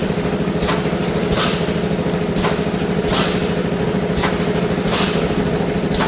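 Semi-automatic anti-climb mesh welding machine running: a steady hum with a short, sharp stroke repeating about once a second as it works through its cycle.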